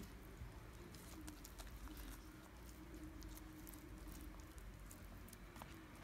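Faint soft crinkling and scattered light clicks of thin pastry sheets being folded and pressed by fingers over a filling in a metal ring mold, over a faint steady hum.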